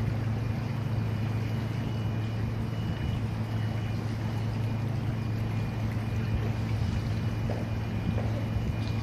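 A steady low engine drone under a constant hiss, with faint high tones coming and going.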